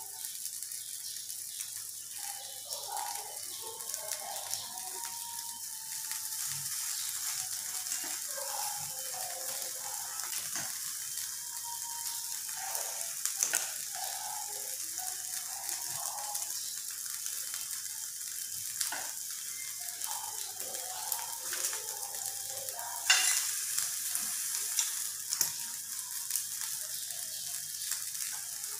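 Marinated chicken sizzling on an electric tabletop grill: a steady hiss, broken by occasional sharp clicks of utensils against the steel bowl and wire grill rack, the loudest about two-thirds of the way through.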